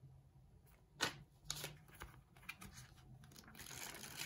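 Faint handling of a paper envelope and a kraft cardboard card mailer: a short sharp tap about a second in, then light paper and cardboard rustling.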